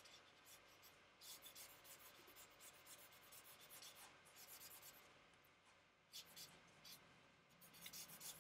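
Charcoal scratching faintly across sketchbook paper in quick shading strokes, darkening an edge of the drawing: a run of strokes, a short pause, then a few more near the end.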